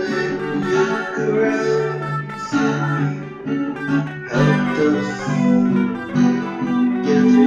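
Background music: an instrumental passage of a song, led by guitar, between sung lines.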